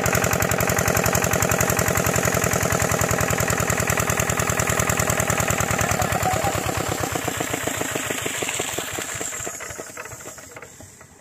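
Kirloskar single-cylinder diesel engine driving a water pump, running with a fast, even firing beat. About six seconds in it begins to slow: the beats spread apart and fade as it runs down to a stop near the end.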